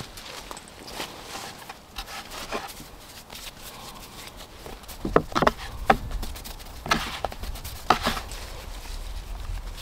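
Hands working pizza dough on a floured wooden chopping board: soft pats and rubbing, with a few sharp knocks on the wood between about five and eight seconds in.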